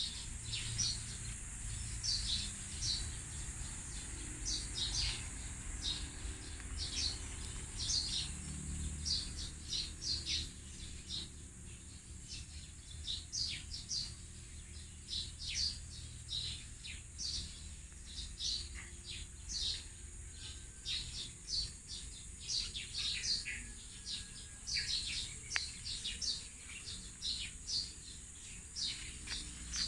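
Small birds chirping, short high calls coming in quick runs throughout, over a steady high-pitched hiss.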